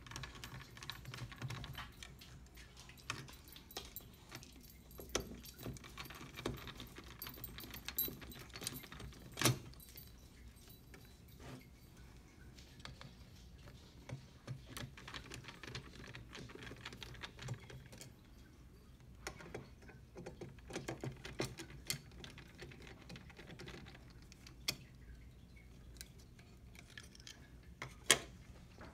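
Scattered small clicks, taps and light metallic rattles of parts and tools being handled while the side board of a Triton ATM's receipt printer is taken off. Two sharper clicks stand out, about nine seconds in and near the end.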